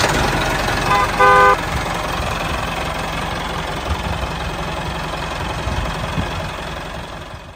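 Tractor engine running steadily, with a short horn toot a little over a second in. The engine sound fades away near the end.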